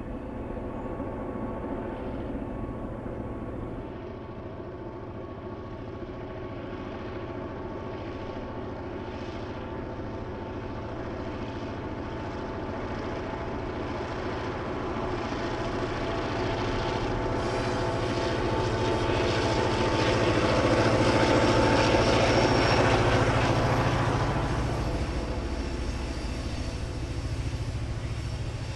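EMD GP9 diesel locomotive's 16-cylinder two-stroke 567 engine working hard under load, hauling a heavy freight train upgrade: a steady drone that grows louder, is loudest about twenty seconds in as the locomotive passes, then eases off as the freight cars roll by.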